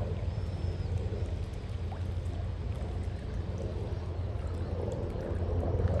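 Steady outdoor ambience on a lake: a low rumble under a soft wash of rippling water, growing a little louder near the end.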